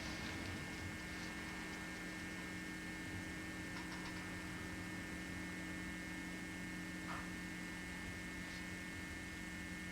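Steady electrical hum holding several constant tones, low and mid-high, over a soft background hiss, with a couple of faint brief sounds.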